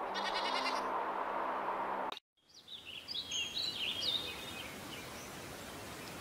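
Steady outdoor rushing noise that breaks off in a brief silence about two seconds in. Then comes a run of high, sharp, quickly sweeping chirps from a hummingbird, lasting about two seconds, before quieter background noise.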